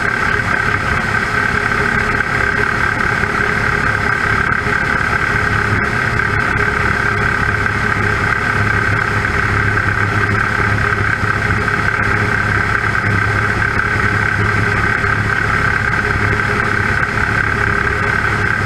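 Avian Adventurer homebuilt light aircraft's piston engine and propeller running steadily in flight, heard from a camera mounted on the outside of the aircraft beside the engine cowling, with a steady hum and a strong, unchanging pitch.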